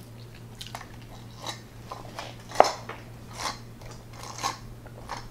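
Close-miked mouth sounds of drinking from a juice box through a straw: a run of short sips and swallows about every half second, the loudest a little past halfway.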